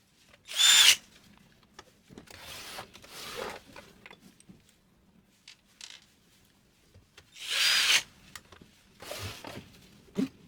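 Small electric power tool whirring in two short bursts with a high whine, one near the start and one about seven seconds later, with softer rasping noise after each.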